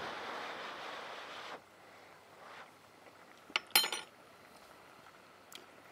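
A breath blown over a spoonful of hot jerk sauce for about a second and a half, then a metal spoon clinks twice against cookware.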